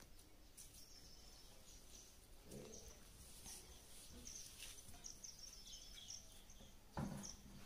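Faint, scattered high bird chirps over a quiet background, with one brief louder low sound about seven seconds in.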